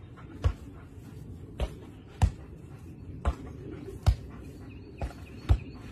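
A light ball being hit back and forth in a rally between a person and a dog: about seven sharp smacks, spaced half a second to a second apart, some louder than others.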